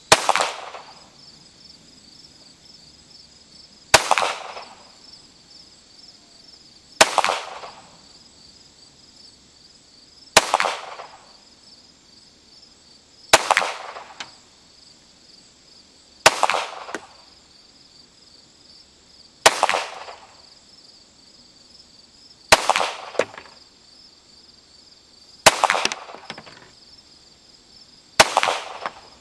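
Ten single .22 LR shots from a Ruger Mark III semi-automatic pistol firing Federal 36-grain bulk-pack rounds, spaced about three seconds apart, each sharp crack followed by a short tail. Crickets chirp steadily underneath.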